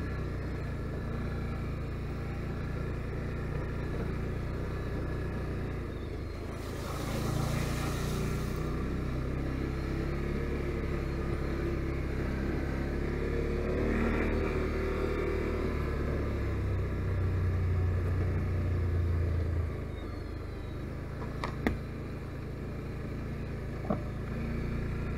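Can-Am Outlander 570 ATV's V-twin engine running under way, its note rising and falling with the throttle. A brief hiss comes about seven seconds in, and two sharp knocks come near the end.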